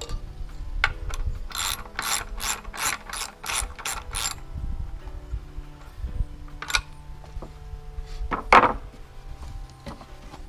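Ratchet wrench tightening bolts on a wooden picnic table frame: a quick run of about nine ratcheting strokes, about three a second. Then a few single clicks and knocks, the loudest one about eight and a half seconds in.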